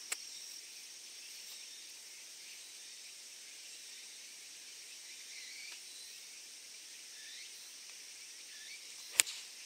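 Steady high-pitched chorus of insects in the surrounding grass and trees, with a few short chirps. A single sharp knock sounds shortly before the end.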